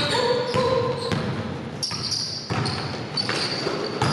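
A basketball dribbled on a gym floor, its bounces coming as repeated sharp thuds. Sneakers squeak in short, high bursts as players run on the court.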